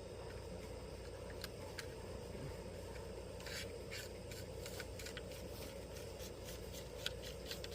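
Electrical wires being fed through a conduit pipe: scattered short scrapes and rubs of the wires sliding against the pipe, over a steady low hum.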